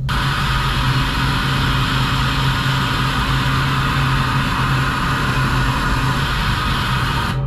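Syil X7 CNC vertical mill running with a small pointed cutter working the 6061 aluminum part: a steady, even hiss over a constant low hum. It starts suddenly and cuts off suddenly near the end.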